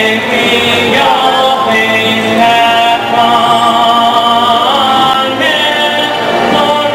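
Singing of the high school's alma mater, a slow melody with long held notes.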